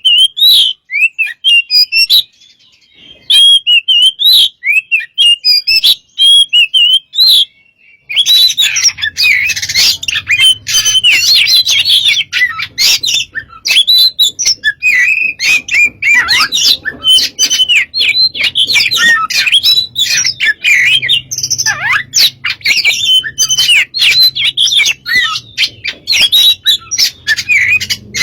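Oriental magpie-robin (kacer) in full song: loud, varied whistles and chirps. For the first eight seconds or so the phrases come in short spaced runs, then the song turns dense and continuous, with a faint low hum underneath.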